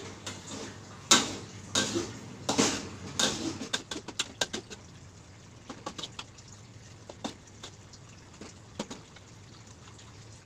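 Metal spatula scraping and knocking against a wok while stirring thick green chili paste: several sharp strikes in the first few seconds, then lighter clicks that fade out toward the end.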